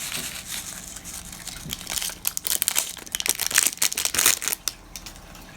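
Crinkling and crackling as glow-in-the-dark star confetti is taken from its plastic packet. Quick crackles and clicks come thickest in the middle and thin out near the end.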